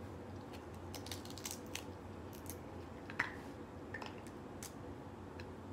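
Crab shell being cracked and picked apart by hand: an irregular scatter of small sharp cracks and clicks, the sharpest about three seconds in.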